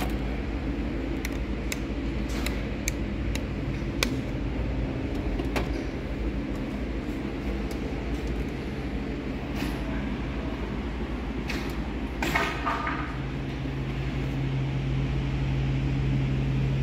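Steady low machinery hum, with scattered light clicks and a brief metallic rattle about twelve seconds in as tool-chest drawers and hand tools are handled. A second steady low tone joins the hum shortly after.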